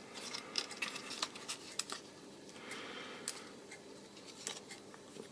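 Irregular small clicks and light taps of plastic parts being handled as a Fluke clamp meter is taken apart.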